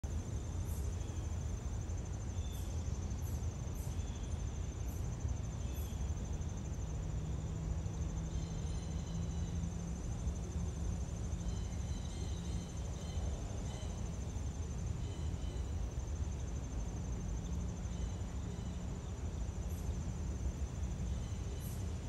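Insects trilling steadily at a high pitch over a low background rumble, with faint short chirps now and then.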